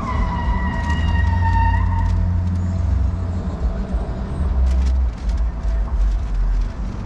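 Low, steady rumble of a car, heard from inside the cabin. At the start a high whine sounds and drifts slightly lower for about two seconds, then stops; a few light clicks come about five seconds in.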